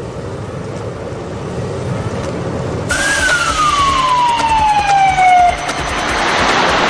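A low in-car rumble, then about three seconds in an ambulance siren sounds suddenly: one long wail falling steadily in pitch, followed by a broad rushing noise of the moving vehicle.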